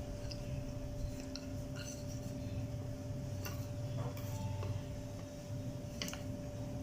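A wooden rolling pin rolling out small puris on a board: a soft, uneven rumble with a few light clicks, over a faint steady hum.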